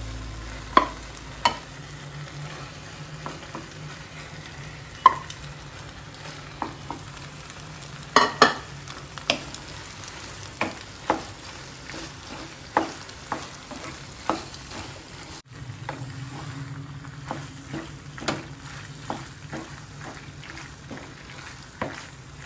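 Wooden spatula stirring macaroni in masala sauce in a frying pan, knocking and scraping against the pan at irregular moments, while the pasta fries and sizzles. A steady low hum runs underneath.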